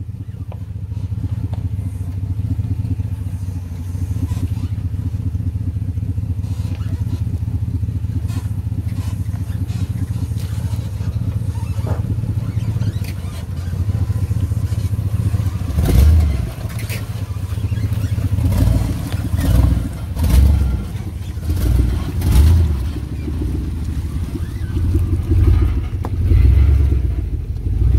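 Engine of a 1996 GMC Sierra 4x4 pickup running at a slow crawl as it works through a rocky, water-filled trail section. In the second half there is a run of heavier, uneven low surges.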